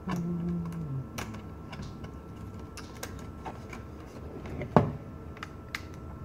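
Small clicks and taps of a hand screwdriver and small parts against a netbook's plastic case during disassembly, scattered irregularly, with one louder knock about five seconds in.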